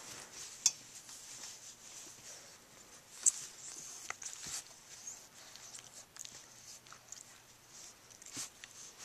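Bulldog puppy scuffling and play-biting at a hand and clothing: faint rustling and handling noise with a few sharp clicks, the loudest about a second in and about three seconds in.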